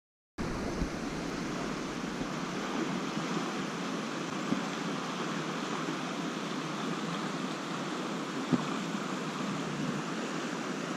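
Steady rushing of a fast-flowing stream, starting about half a second in after a moment of silence.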